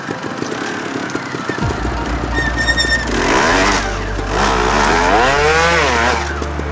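Trials motorcycle engine revving up and falling back in swoops as the bike climbs a rocky incline. Electronic background music with a deep bass line comes in about two seconds in.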